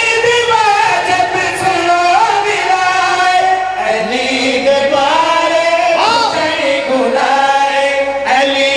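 Several men singing together into microphones, a majlis chorus of long, drawn-out notes that shift in pitch, with a brief break near the end.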